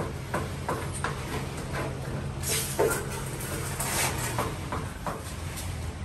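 Fingers and hand rubbing and scraping over glazed wall tiles while working grout into the joints: irregular short scrapes and brushes, with a longer, louder scrape about two and a half seconds in and again near four seconds. A steady low hum sits underneath.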